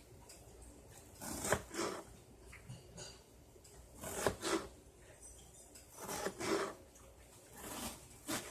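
Utensil scraping and knocking in a cooking pan, four short strokes about two seconds apart.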